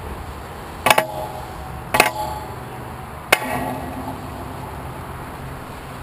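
Three sharp knocks on the stationary tram, each followed by a short ring, carried as vibration through the tram body and trolley pole to the roof-mounted camera, over a steady low background rumble.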